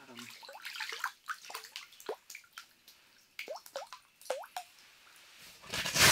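Water dripping and plopping in an ice-fishing hole as a hooked brook trout is brought up through it, with a louder splash about six seconds in.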